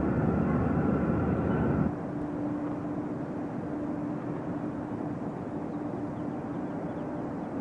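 Road and engine noise from a moving car heard from inside, cutting off abruptly about two seconds in to a quieter steady hum.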